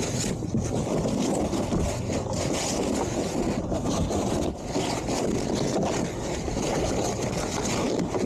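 A boat engine running steadily, with wind buffeting the microphone.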